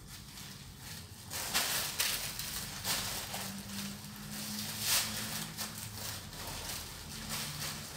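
Plastic bag crinkling and rustling in irregular bursts as a mother cat and her kitten wrestle on it, loudest about a second and a half in and again near the middle.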